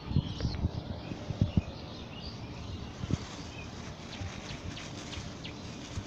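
Dull low thuds and bumps from a hand-held camera being handled and moved through grass, several in the first second and a half and one about three seconds in, over faint bird chirps and outdoor background.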